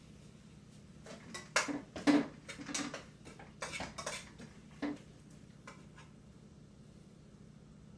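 Spoon stirring in a stainless steel cooking pot: a run of clinks and scrapes against the pot between about one and five seconds in, loudest around two seconds in.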